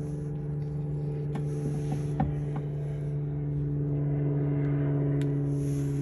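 Steady machine hum with several even tones held throughout, with a few faint clicks and rustles of gloved hands digging through potting soil in a fabric grow bag.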